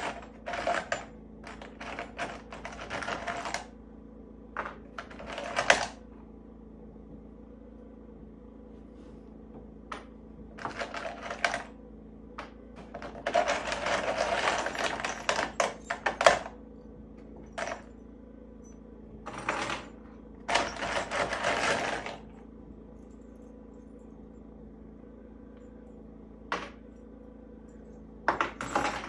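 Small metal hardware rattling and clinking in a plastic parts bin as it is rummaged through by hand, in irregular bursts with pauses between, the longest about halfway through.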